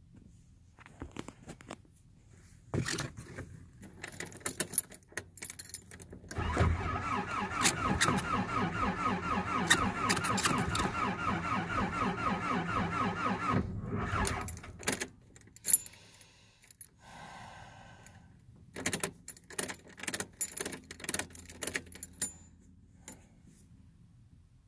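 The Nissan 720's starter cranks the engine in a steady rhythmic churn for about seven seconds, then stops without the engine catching: a failed cold start. Keys jingle and click before and after the cranking.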